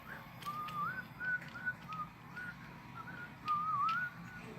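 A man whistling a wandering tune in short phrases, with a few faint clicks in the background.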